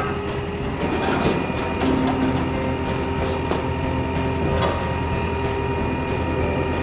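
Rotary-plate packer of a garbage truck cycling: the rotating plate sweeps through the rear hopper with a steady mechanical whine over the low rumble of the truck's engine, with a few light knocks.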